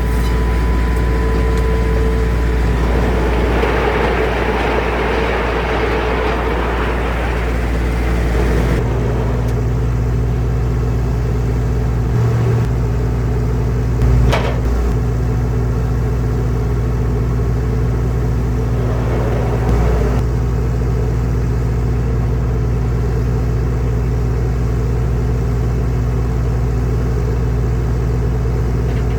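Engine of a portable circular sawmill running steadily. For a few seconds near the start a rougher hiss rises over it as the blade cuts through spruce, then the engine runs on evenly, with one sharp knock about halfway through.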